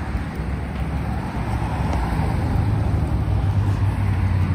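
Steady low rumble of a car on the road, engine and tyre noise, growing a little louder about halfway through.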